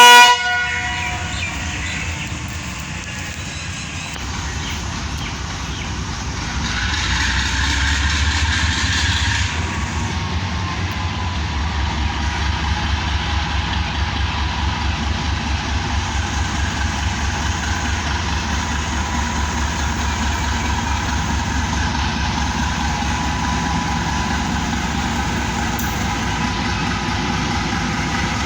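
Diesel-electric train locomotive running at a station with a steady low throb. A hiss joins in about seven seconds in and lasts a couple of seconds.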